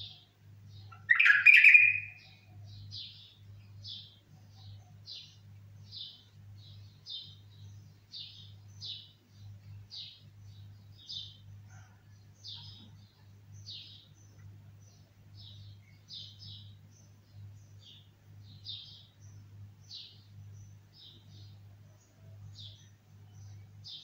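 Bulbul chirping: short high chirps repeat about once a second, with one loud, lower call about a second in. A steady low electrical hum runs underneath.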